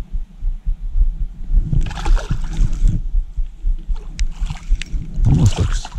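A hooked largemouth bass splashing at the water's surface as it is lifted out of the pond, with a burst of splashing about two seconds in, over a steady low wind rumble on the microphone.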